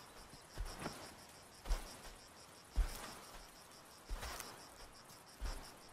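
Crickets chirping in a steady, rapid, even rhythm, with several soft thuds and snaps scattered through it, as of an elephant's feet and dry brush as it walks through scrub.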